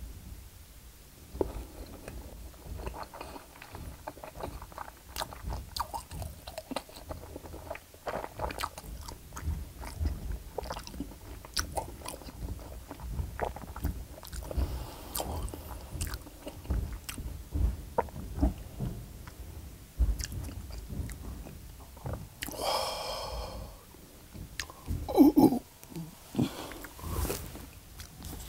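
Close, wet chewing of a mouthful of Spam and spicy instant noodles, with many small mouth clicks and smacks. About three-quarters of the way through there is a short pitched sound from the eater's throat, then a couple of louder thumps.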